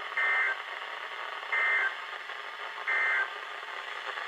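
Emergency Alert System end-of-message data bursts on NOAA Weather Radio: three short, shrill two-tone digital bursts, each about a third of a second long with about a second between them, over the receiver's steady hiss. They signal that the warning broadcast has ended.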